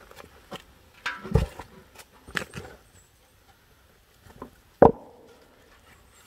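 Intermittent knocks and clicks of objects being handled, a duller thud about a second in and a sharp click near the end.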